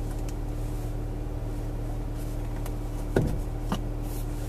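Steady low hum inside a car cabin, with a few light clicks and one sharper click about three seconds in.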